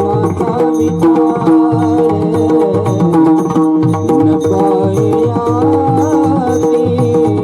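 Marathi devotional bhajan music: Indian hand drums play a steady rhythmic pattern under a sustained melody line.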